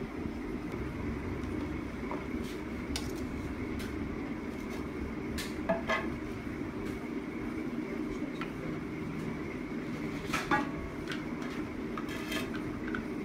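Scattered clinks and knocks of metal bowls, plates and spoons being handled, the loudest about ten and a half seconds in, over a steady low background hum.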